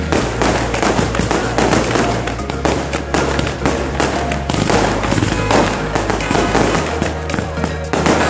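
Background music with a low bass line that changes note every second or two, mixed with dense fireworks-like crackling.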